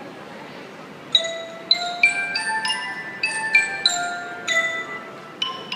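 Mallet percussion playing a melody of bright, bell-like struck notes, each ringing on, starting about a second in.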